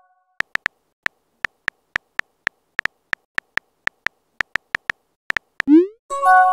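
Synthetic phone-keyboard tap clicks from a texting app, about twenty quick, unevenly spaced taps as a message is typed. Near the end comes a short rising blip, then a steady electronic chime chord, the app's message-sent sound.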